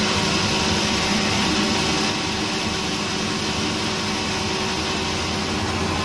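Sawmill band-saw headrig and its machinery running steadily with a constant, even hum and hiss.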